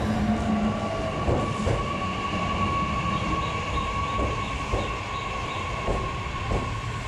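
Electric train rolling slowly along the track: wheels clack over rail joints in pairs every second or so, under a steady high-pitched whine.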